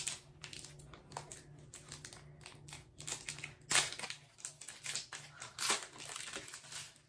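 Plastic wrapper of a trading-card pack crinkling and crackling in the hands as it is torn open, in an irregular run of crackles with louder bursts about halfway through and near the end.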